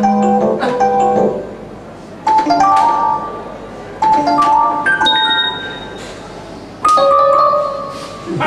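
Short phrases of bright, chime-like keyboard notes, four times: each a quick cluster of notes that starts sharply, rings briefly and fades before the next.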